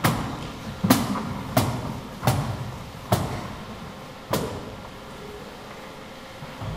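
Six sharp thuds on the stage, irregularly spaced less than a second apart and ending a little after four seconds, each echoing in the auditorium.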